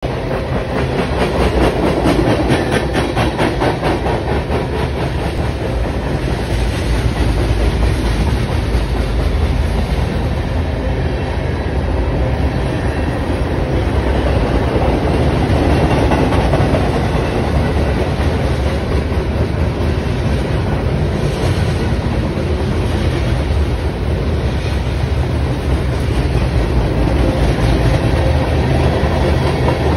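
Freight train of tank cars and covered hoppers rolling past: a steady rumble of wheels on rail, with repeated clacks as the wheels cross rail joints.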